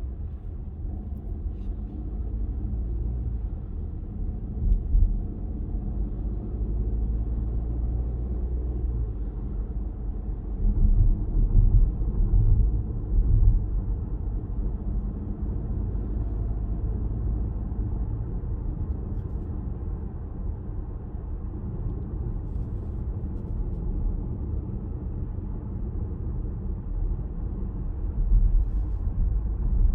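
Cabin noise of a Peugeot 408 with the 1.2 PureTech three-cylinder turbo petrol engine on the move: a steady low road and engine rumble, with a few short louder low swells.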